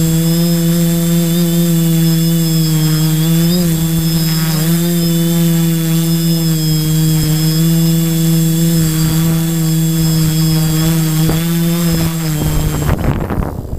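Flite Test tricopter's three electric motors and propellers giving a steady, loud drone in flight, with a couple of brief pitch blips about four seconds in, heard from the GoPro on the craft itself. About a second before the end the motors cut out and a rush of scraping noise follows as the tricopter comes down onto the snow.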